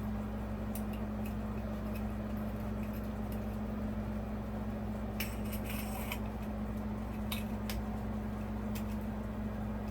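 Glass light shade clinking against the metal fitter of a ceiling fan light kit as it is fitted in place: scattered light clicks, with a short cluster of rattling clinks about five seconds in. A steady low hum runs underneath.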